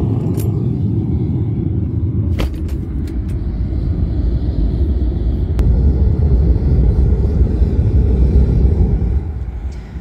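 A single propane burner firing into a kiln chamber: a steady low rumble of the gas flame, growing louder about halfway through, with a few faint clicks.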